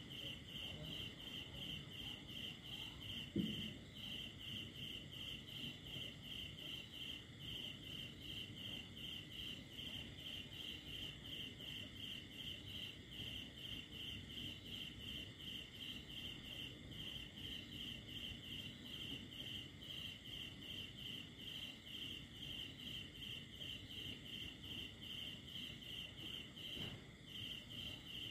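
Cricket chirping steadily in an even rhythm of about three chirps a second, with one brief low thump about three and a half seconds in.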